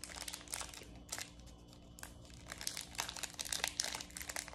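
Crinkling and rustling of packaging as card-game pieces are handled and unpacked. It comes as a patter of small rustles and clicks that gets busier in the second half.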